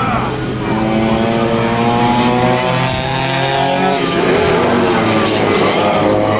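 Several vintage racing go-kart engines running together at speed, their pitches shifting as they accelerate and pass, with one sweeping in pitch as it goes by about four seconds in.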